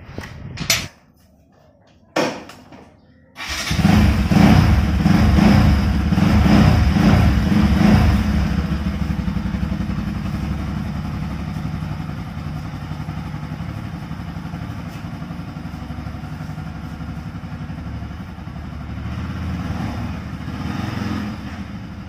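A couple of short knocks, then about three and a half seconds in a motorcycle engine starts. It runs loudest for the first few seconds, then settles to steadier, lower running, swelling slightly near the end as the bike moves off.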